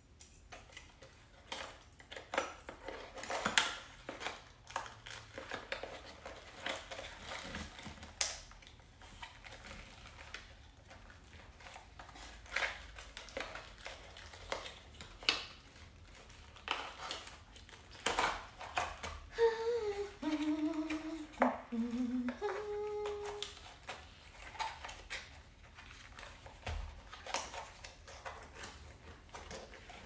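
Scattered clicks, taps and light clinks of small hardware and packaging being handled, with a person humming a few low notes about twenty seconds in.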